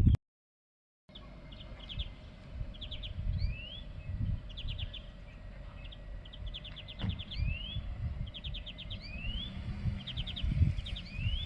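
A songbird singing the same short phrase again and again, about every second and a half: a quick trill of repeated notes followed by a rising whistle, over a low rumbling background noise. The song starts after about a second of silence.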